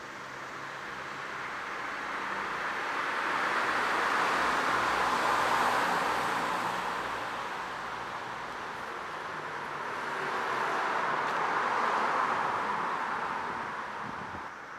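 Two road vehicles passing one after another, each a rising and fading swell of tyre noise, the first peaking about five seconds in and the second about twelve seconds in.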